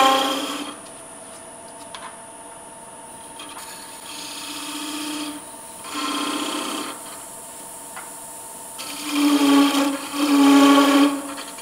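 Wood lathe running with a steady motor hum while a parting tool cuts into the spinning wooden bell to part it off. The cutting comes and goes as a pitched buzz, louder at the start and in two strong bursts near the end.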